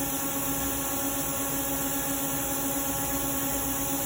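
Steady machine hum: a constant low tone with a few higher tones over an even hiss, like a fan or motor running.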